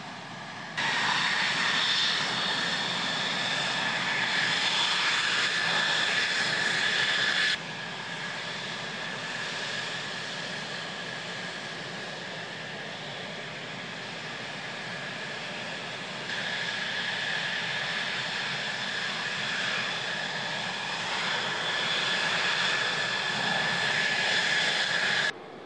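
F-16 fighter jet engines running steadily at low taxi power: a steady high-pitched whine over a rushing jet noise. The loudness jumps up about a second in, drops about seven and a half seconds in, rises again around sixteen seconds and falls off just before the end.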